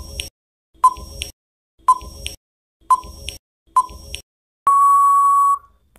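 Quiz countdown timer sound effect: a short, sharp tick about once a second, then a steady high beep lasting about a second near the end, as the time runs out.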